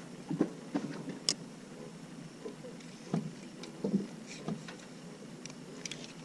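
Scattered light knocks and clicks, about a dozen over several seconds, from fishing gear being handled aboard a small fishing boat, over a faint steady background.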